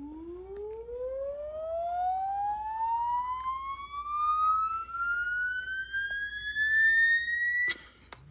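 Recorded siren played through a speaker: one long wail rising steadily in pitch for nearly eight seconds, then cut off abruptly with a click near the end.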